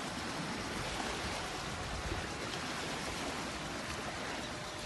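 Steady outdoor hiss of wind with small lake waves washing in, even throughout with no distinct events.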